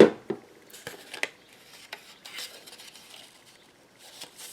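Hands working with paper and small craft items on a tabletop: a sharp tap at the start, then scattered small clicks and light rubbing.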